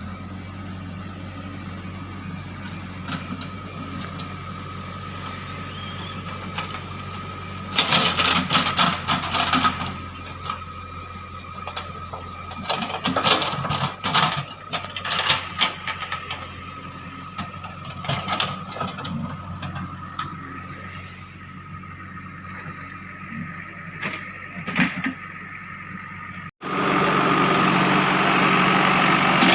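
JCB 3DX backhoe loader's diesel engine running steadily, with several loud bursts of clattering and knocking as the machine works the soil. Near the end the sound cuts abruptly to a louder, steadier engine run.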